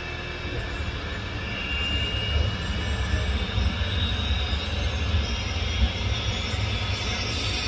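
Airliner pushback: the tug's engine and the aircraft's jet engines running together as a steady heavy rumble with a thin turbine whine on top. The rumble grows louder about a second in.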